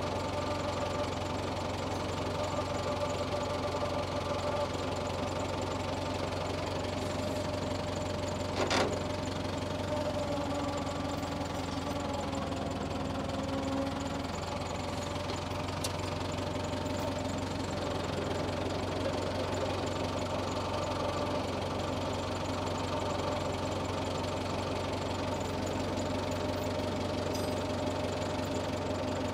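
Tractor engine running steadily, its pitch dipping slightly for a moment in the middle. A single sharp knock about nine seconds in.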